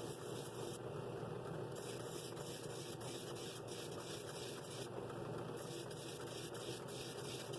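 Drill press running steadily with a sanding drum in its chuck, a piece of a wooden scroll-saw bowl pressed against the spinning drum to sand it.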